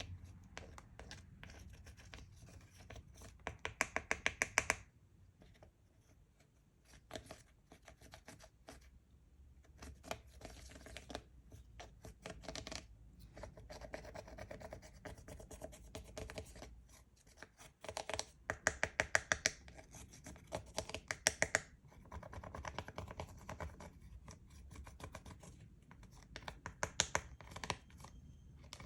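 Hands kneading and working slime, making sticky, wet clicks and small pops. Two louder runs of rapid clicking come about 3 to 5 seconds in and again around 18 to 21 seconds.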